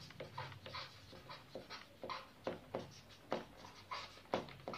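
Felt-tip marker writing on paper: a quick run of short, faint scratchy strokes, about three a second, as a word is written out.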